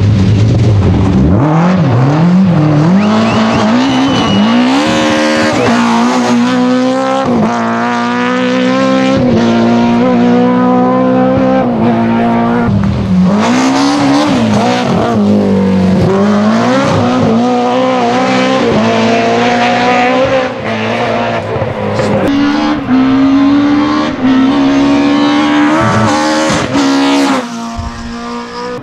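BMW E30 M3 Group A rally cars' S14 2.3-litre four-cylinder engines at full throttle, the revs rising and falling sharply again and again through gear changes and lifts as each car passes. Some tyre squeal and skidding mixes in.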